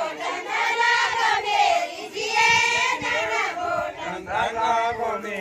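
A group of villagers singing a Garhwali folk song in chorus, in long drawn-out phrases one after another.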